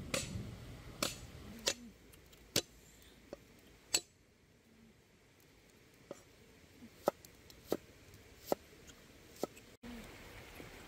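A series of about a dozen sharp, irregular clicks and taps over a low steady background, cut by a very short dropout near the end.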